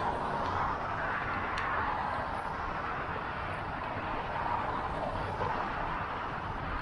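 Steady city traffic and road noise heard from a moving bicycle, with a low rumble and no distinct single vehicle standing out.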